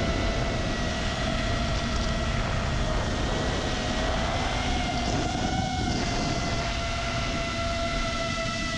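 FPV quadcopter's T-Motor F60 Pro II 2700KV brushless motors whining at a steady pitch, heard from on board with the rush of wind and prop wash. The pitch rises briefly about five seconds in, then settles.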